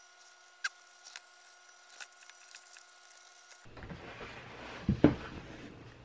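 Faint clicks and rustling of a leather seat cover being handled, then fuller handling noise with two knocks about five seconds in as the recovered chopper seat is moved and pressed by hand.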